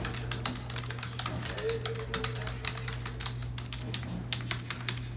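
Fast typing on a computer keyboard: irregular key clicks, several a second, over a steady low hum.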